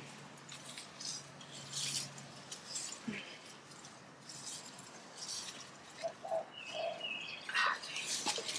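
Intermittent soft rustling and scraping from hands working potting soil and plants in a planter, with a few faint bird chirps about six to seven seconds in.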